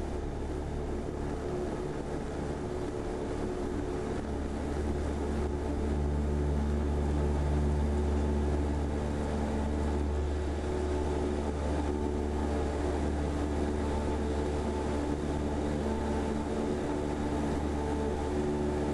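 Cessna 172R's four-cylinder Lycoming engine and propeller at full throttle, heard from inside the cockpit through the short-field takeoff roll and climb-out. A steady drone with a deep hum, a little louder from about six seconds in.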